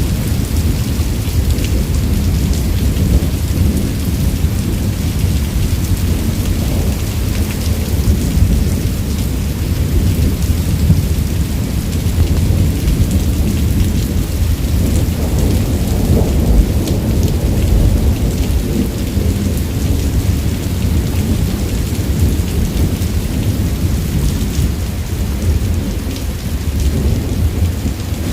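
Thunderstorm: steady heavy rain with low, continuous rumbling of thunder.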